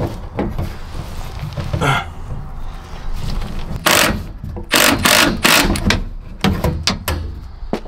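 Irregular short bursts of mechanical work noise, tool and handling clatter, over a low steady hum. The loudest bursts come in the second half.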